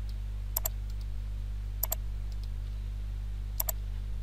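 Computer mouse button clicked three times, each a quick press-and-release double click, over a steady low electrical hum.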